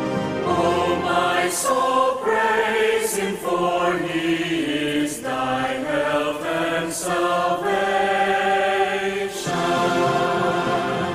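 Mixed choir of women's and men's voices singing in harmony, holding chords that move to new notes about every second, with crisp 's' consonants of the words standing out several times.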